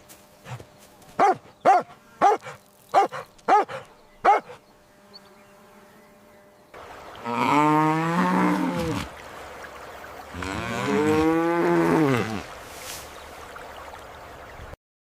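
A dog barks in a string of short barks over the first four seconds. After a pause, a cow moos twice, two long calls of about two seconds each that drop in pitch as they end.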